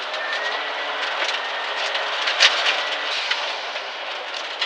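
Dodge Neon SRT-4 rally car's turbocharged 2.4-litre four-cylinder engine running at speed, heard from inside the cabin, with steady road noise. Frequent sharp ticks of stones and gravel strike the car's body on the loose surface.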